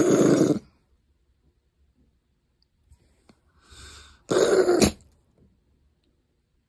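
A harsh, raspy vocal sound made twice, like a cough or a throat-clearing grunt: the first ends about half a second in, and the second comes briefly about four and a half seconds in.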